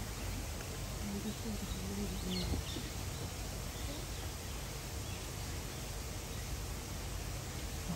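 Steady outdoor background noise, with a faint short bird chirp about two and a half seconds in.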